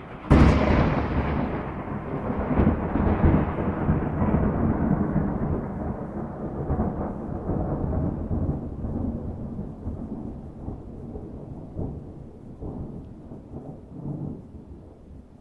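A thunderclap: a sharp crack about a third of a second in, then a long rolling rumble that slowly dies away.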